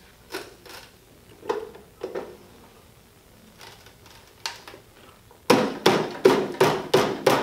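Plastic vegetable chopper box being worked by hand. There are a few soft clicks and knocks as the lid is lined up over a piece of potato. Then, from about five and a half seconds in, comes a quick run of loud, sharp knocks, about three a second, as the lid is forced down hard to push the potato through the dicing grid.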